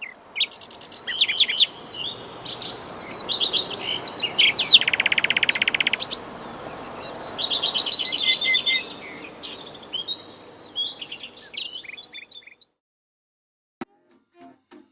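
Outdoor birdsong: songbirds chirping and singing in quick phrases, with a fast dry trill about five seconds in, until the singing stops about twelve seconds in. Acoustic guitar music comes in near the end.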